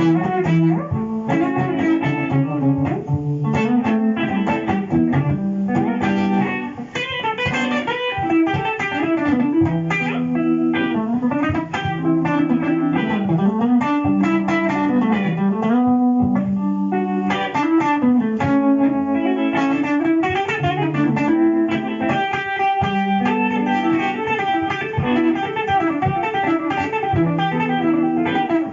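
Electric guitar played through a Boss GT-100 multi-effects unit: a jazzy freestyle melody over a looped guitar backing, with some notes sliding up and down in pitch.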